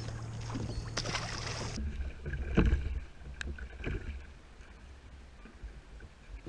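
Choppy water and wind around a plastic fishing kayak, with a few knocks and one heavier thump about two and a half seconds in.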